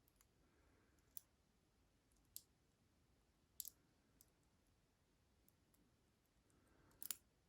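A few faint, short metallic clicks about a second apart, with one more near the end: small serrated lock pins and tweezers clicking as the pin stacks are taken out of an American Lock AL1106 padlock.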